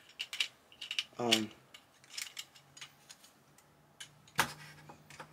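Hard plastic Transformers figure parts clicking and clacking as they are handled and pushed together, with one louder click about four and a half seconds in. A brief murmured voice about a second in.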